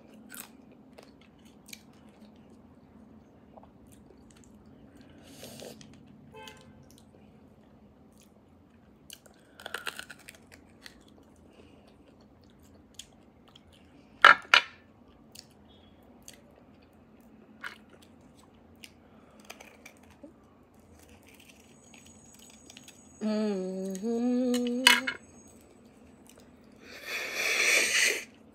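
Close-miked mouth sounds of eating roasted beef bone marrow: soft chewing and small wet clicks. About halfway there is one sharp clack as a marrow bone is picked up off the plate. Near the end comes a short hummed "mm", then a loud slurp as marrow is sucked out of a bone.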